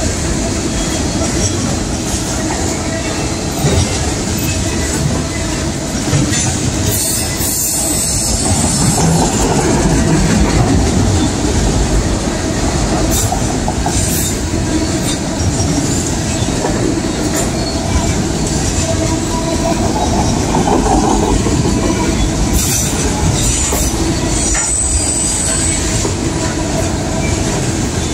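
Train rolling past: the steady rumble and rattle of railcars on the rails, with brief high wheel squeals about seven seconds in and again near the end.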